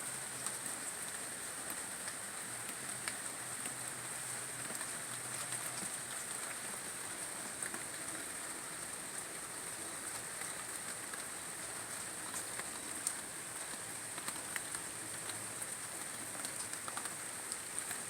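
Steady rain falling, with scattered separate drops landing close by.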